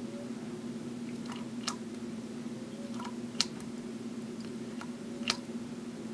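Parker Vacumatic fountain pen's plunger filler being pumped with the nib in an ink bottle: three sharp clicks about every two seconds as the plunger is pressed, with fainter ticks between, over a steady low hum.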